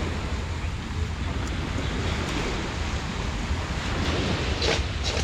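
Sea waves rushing onto the beach under strong wind, with wind buffeting the microphone as a steady low rumble. Near the end a few short, sharp sounds cut in.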